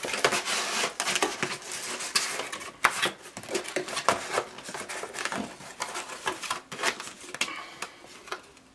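Cardboard camera box being packed up by hand: the insert and flaps are slid and pressed into place, with rustling, scraping and many small knocks.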